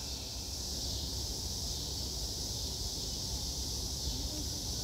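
Steady chorus of insects, an even high-pitched hiss, over a faint low rumble.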